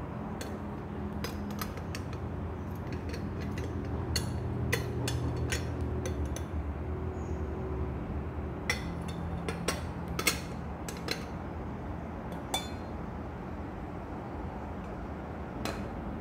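Glass teapot pieces clinking as they are handled: the glass infuser and lid knocking against the glass pot, a scattered series of light clinks, thickest about four to six seconds in and again from about nine to thirteen seconds in. A steady low hum lies underneath.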